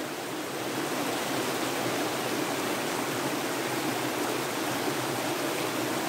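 Stream water flowing: a steady, even rush.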